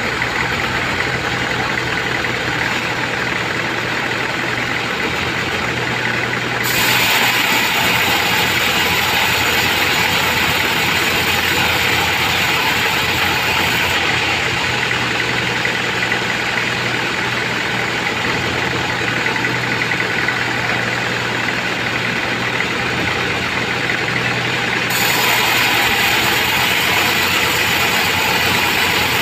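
Band sawmill running steadily, its blade sawing through trembesi (rain tree) timber. The cutting grows louder and brighter about a quarter of the way in and again near the end.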